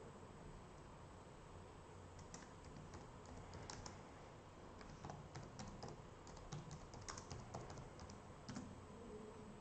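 Faint typing on a computer keyboard: irregular key clicks starting about two seconds in and stopping shortly before the end, over a low steady hiss.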